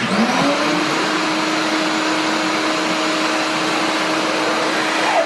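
Electric motor switched on, spinning up within about half a second and then running steadily with a whine over a loud hiss.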